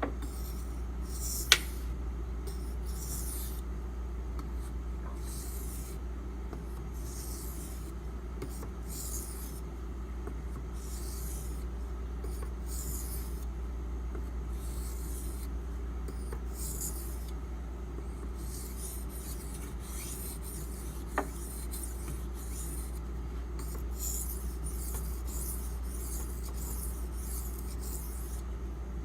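Steel knife blade (8Cr13MoV) drawn back and forth in light passes across a wet whetstone, an Imanishi 1000/6000 combo water stone. It makes a repeated rasping swish about once a second: deburring strokes near the end of sharpening.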